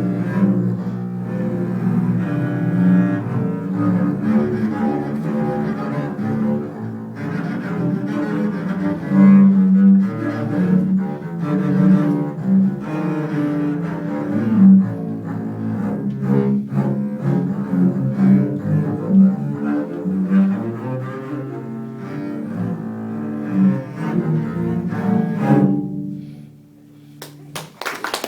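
Double bass quartet playing a piece of music on bowed basses, the notes sitting low and thick; the playing ends about two seconds before the end, and after a short pause clapping begins.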